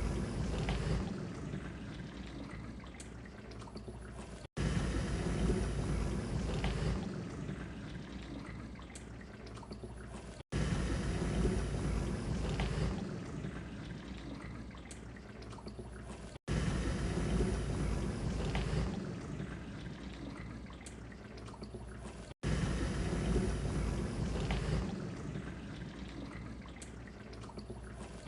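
Dishwasher washing, its water spraying and sloshing in a steady rush. A short recording is looped: about every six seconds the sound cuts off abruptly and restarts with a louder surge that eases back.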